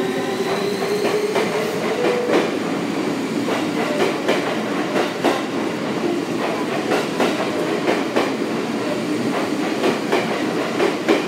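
JR 651 series 1000-number electric multiple unit accelerating out of a station. In the first two seconds there is a rising motor hum. After that the wheels clack repeatedly over rail joints as the cars roll past, with steady rolling noise underneath.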